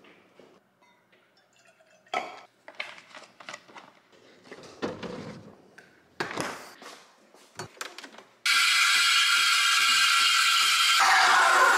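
A Breville espresso machine's steam wand starts with a sudden, loud, steady hiss, steaming milk in a stainless pitcher, with a faint pulsing underneath. Near the end the sound changes and a lower tone slides downward. Before it come scattered clicks and knocks from handling a carton and shutting a fridge door.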